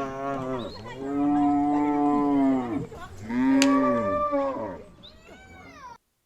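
Cow mooing: a few long, low moos in a row, the last one weaker and falling in pitch before it stops abruptly.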